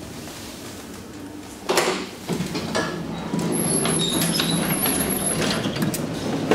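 Elevator doors opening: a sudden clunk about two seconds in, then the doors sliding open with a steady hum and light rattling clicks from the door mechanism.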